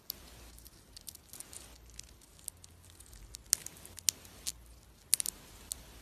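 Hamster nibbling and cracking seeds, making irregular sharp clicks and crackles, with the loudest clicks clustered in the second half.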